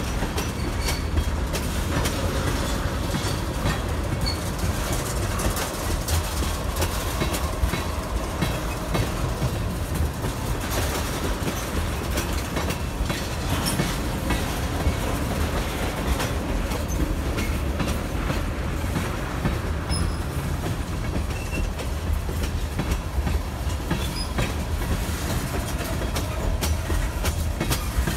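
Freight train tank cars rolling past, their wheels clacking irregularly over the rails over a steady low rumble.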